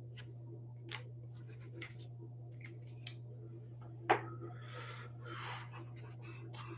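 Hands handling baseball trading cards: small clicks and rustles of card stock, with a sharper click about four seconds in. A steady low hum runs underneath.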